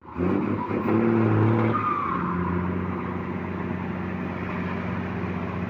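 Heavy diesel truck engine running under load as a truck works in deep flooded mud. It runs higher and louder for the first couple of seconds, then settles to a steady lower drone.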